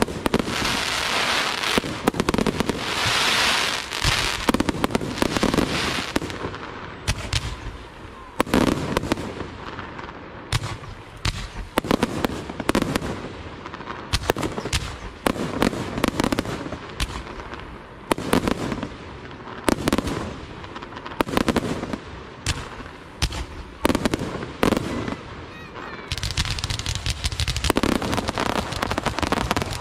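Aerial fireworks shells bursting in quick succession, with sharp bangs about once or twice a second. Dense crackling from crackling-star effects fills the first few seconds and comes back near the end.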